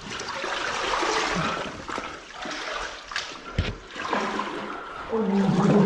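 Cold cave water sloshing and splashing irregularly as a caver moves through a water-filled passage, with a few knocks and a dull thump about three and a half seconds in.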